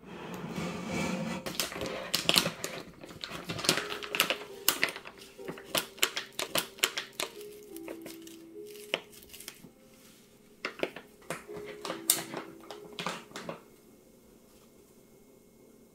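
A rapid, irregular run of sharp clicks and taps that stops a couple of seconds before the end, with soft background music underneath.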